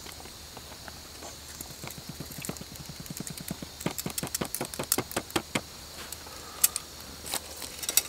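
A spoon stirring rehydrating chicken fried rice in a foil food pouch: a run of crinkling, scraping clicks, about four or five a second, that stops a little past halfway. A few single footsteps on dry grass follow near the end, over steady crickets.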